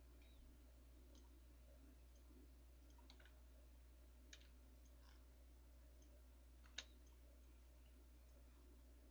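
Near silence over a low steady hum, with a few faint, scattered computer mouse clicks; the sharpest comes about seven seconds in.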